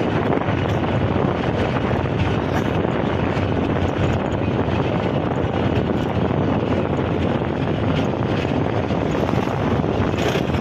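Steady rush of wind buffeting the microphone, mixed with the running noise of the moving vehicle that carries the camera.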